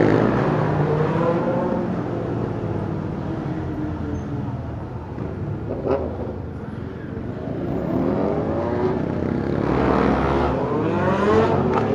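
Motorcycle engines running on the move, the engine note easing off through the middle and rising again with climbing revs toward the end. One short sharp pop about six seconds in.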